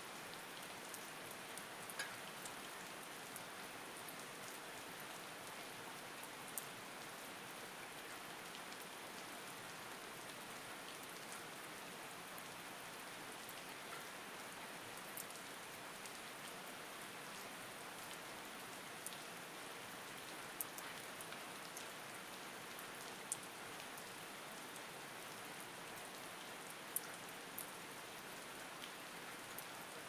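Steady rain falling, an even hiss of many drops, with a few single louder drop ticks standing out now and then.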